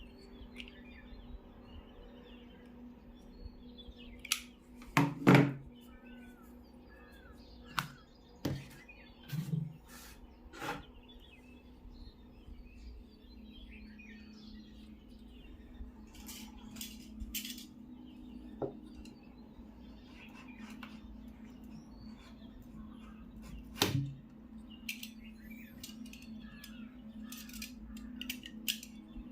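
Scattered clicks and knocks of small parts being handled during an assembly, the loudest a quick cluster about five seconds in, over a faint steady hum that strengthens partway through. Birds chirp faintly in the background.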